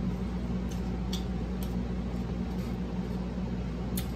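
Steady low room hum with a few faint, short mouth clicks from chewing fried shrimp.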